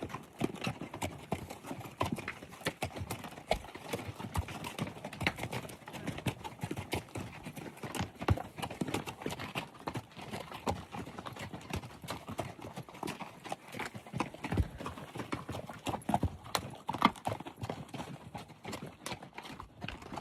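A mule train's hooves clopping past on the trail: many irregular hoof strikes that go on steadily.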